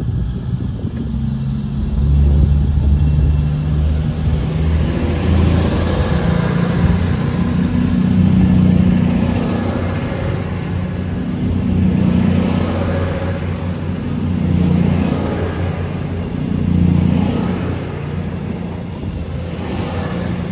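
Cross Country Class 221 Super Voyager diesel-electric train accelerating away, its underfloor Cummins diesel engines running hard under load. The sound swells and fades as each car passes, with a high whine that rises slowly in pitch as the train gathers speed.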